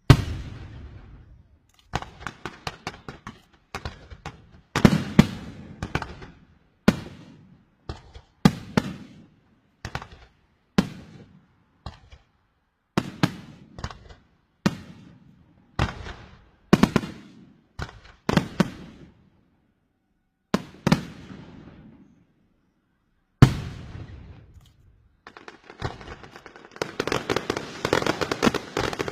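Fireworks going off in a series of sharp bangs, most about a second apart, each fading over a second or so. There is a gap of a couple of seconds before one last big bang. Near the end, dense rapid crackling of firecrackers takes over.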